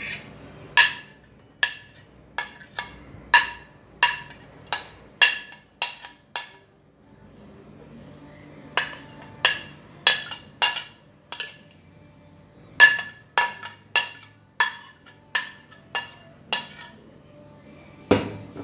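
A white plate's edge tapped again and again against a pressed-glass bowl as chopped vegetables are knocked off into it: sharp, ringing glass clinks about one to two a second, in two runs with a pause of about two seconds between them.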